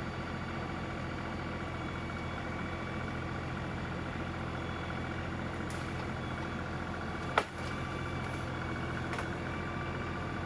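LS XR3135 compact tractor's diesel engine running steadily while it works a hydraulic grapple in brush. One sharp crack sounds about seven seconds in.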